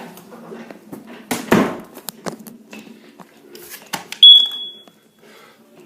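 Knocks and handling noises, then about four seconds in a carbon monoxide alarm gives one loud, high-pitched beep lasting about half a second, as its self-test begins.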